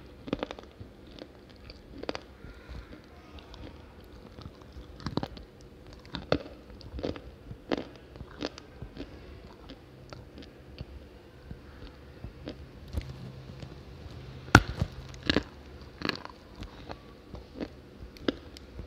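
Dry lumps of multani mitti (fuller's earth clay) being bitten and chewed close to the microphone: irregular sharp crunches and snaps, with the loudest snap about three-quarters of the way through.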